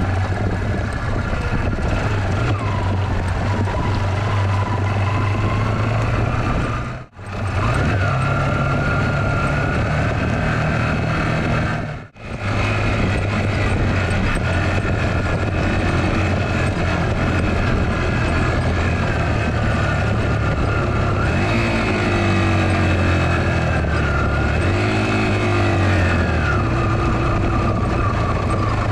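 Small 10-horsepower motorcycle engine running under a heavy load of water on a rough dirt track, its revs rising and falling. The sound drops out briefly twice, about seven and twelve seconds in.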